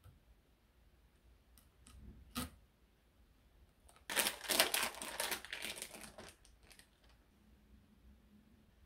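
Crinkling of a plastic wrapper as processed cheese slices are unwrapped, a loud crackly rustle of about two and a half seconds starting about four seconds in. A single sharp tap comes a couple of seconds before it.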